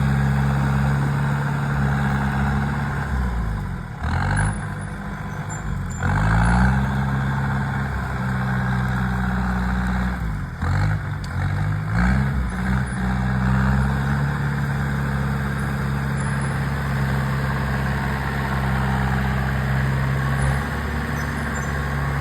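Komatsu D39 crawler dozer's diesel engine working under load. Its note drops and picks back up a few times as the load comes and goes.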